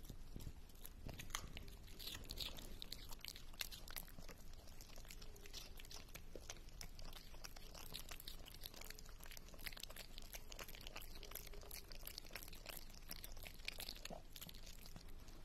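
A small dog chewing a raw carrot, with soft, irregular crunches as its teeth break through the carrot.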